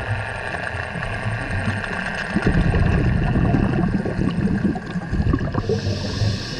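Scuba breathing heard underwater: exhaled regulator bubbles rumble and gurgle for about three seconds, starting a little over two seconds in. A short hiss of an inhale through the regulator follows near the end, over a steady faint hum.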